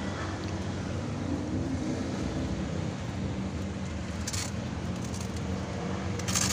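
Steady low mechanical hum, like a running vehicle engine or nearby road traffic, with two short hissing noises about four seconds in and near the end.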